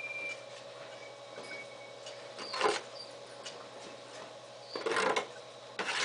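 Dairy barn ambience: a steady mechanical hum with a faint high tone that fades in the first two seconds, broken by short scraping knocks about two and a half seconds in, around five seconds in and near the end.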